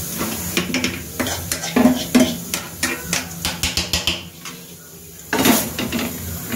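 Kitchen dishes and metal utensils clinking and clattering in a quick irregular run of light knocks, then a short pause, a brief scraping rush and a few more clinks near the end.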